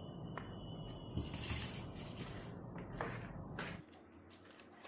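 Handling noise from an RGB LED strip reel and its adapter cable: small clicks and a brief plastic crinkle as the plug is connected and the reel is set down on a wooden desk. A low background hum cuts off suddenly near the end.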